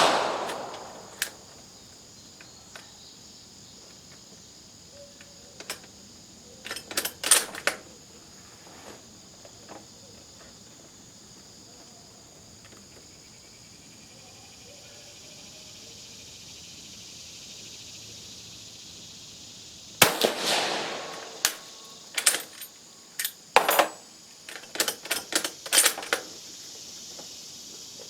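Italian Vetterli 1870/87/15 rifle in 6.5 mm: the tail of a shot at the start, sharp metallic clicks of the action being worked and loaded, then a single shot about twenty seconds in, followed by a quick run of bolt clicks. Insects buzz steadily in the background.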